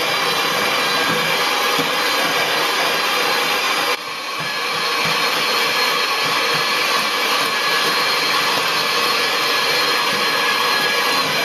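Electric hand mixer running steadily, its twin beaters churning a dry, crumbly dough in a stainless steel saucepan. The sound dips briefly about four seconds in and then carries on at the same level.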